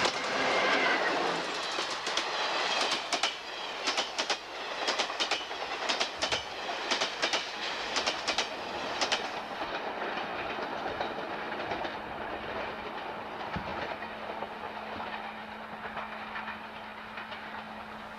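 Electric passenger train passing fast close by: a loud rush as the locomotive goes past, then the coaches' wheels clicking in quick groups over the rail joints for several seconds, the sound fading as the train pulls away.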